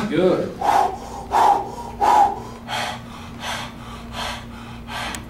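A man breathing hard and fast under heavy leg-press effort: forceful breaths about one every 0.7 seconds, loudest in the first couple of seconds, then weaker. A steady low hum runs beneath.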